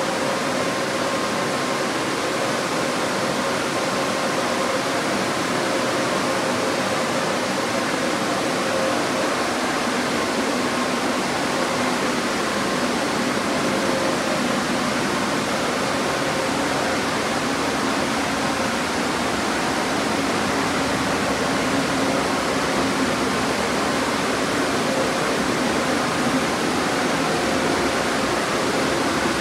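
Touch-free car wash's onboard dryer blowing air over a car: a steady rushing of air with a faint, even fan hum.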